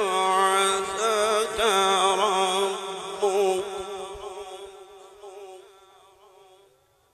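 A man's voice in melodic Quran recitation (tilawat), holding a long wavering, ornamented note that fades away gradually and is gone by about six seconds in.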